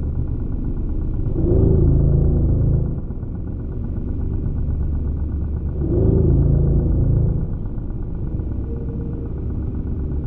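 Slow ambient music: a deep, steady rumbling drone with a wavering tone above it that swells twice, about four and a half seconds apart.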